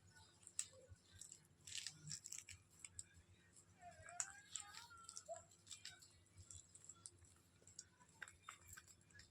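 Parrots nibbling and cracking food with their beaks: faint, irregular small clicks and crunches, with a few soft short chirps about midway.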